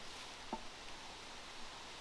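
Faint steady background hiss with one light, short knock about halfway through, in keeping with hands and tools working on a felled log.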